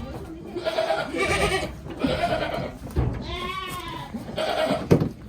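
Goats bleating: about four separate bleats, the one in the middle with a wavering, quavering pitch.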